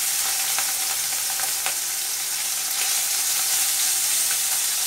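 Small mourala fish frying in hot mustard oil in a steel kadai: a steady, high sizzling hiss with a few faint pops, as the fish are fried until crisp.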